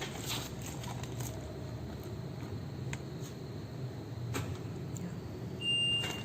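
Cooking-oil packing machine running with a steady low hum and a few sharp clicks. A steady high beep starts near the end.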